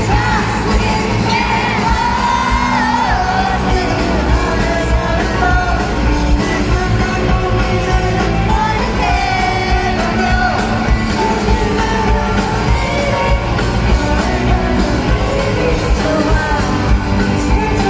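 Live pop-rock band playing in an arena, heard from the audience: a lead vocal over electric guitars, bass, drums and keyboard, with fans yelling and cheering over the music.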